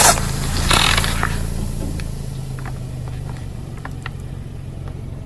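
Car tyre crushing a plastic soda bottle: a sharp burst as the bottle gives way, then a hiss of fizzy cola spraying out, fading over a couple of seconds, over the car's steady engine hum. A few faint clicks follow.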